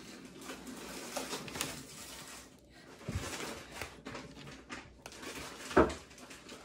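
Soft handling sounds of Play-Doh and plastic toy pieces, with a dull thump about three seconds in and a short, louder knock near the end.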